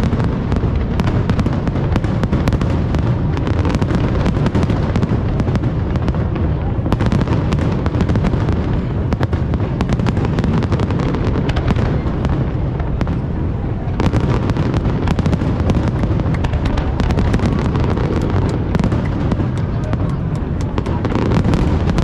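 Fireworks display: aerial shells bursting in a dense, unbroken barrage of booms and crackling.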